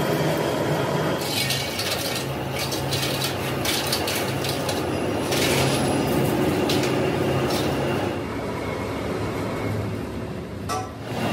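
A workshop machine hums steadily while pieces of metal clink and rattle repeatedly, mostly in the first two-thirds.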